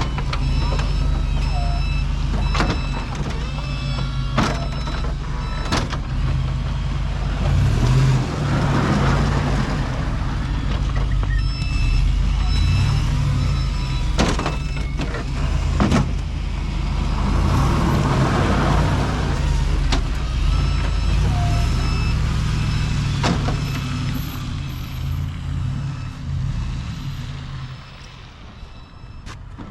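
Snowplow truck running steadily with a low engine rumble while plowing. Repeated runs of evenly spaced electronic beeps, occasional sharp knocks and two drawn-out hissing swells come through; the truck quietens near the end.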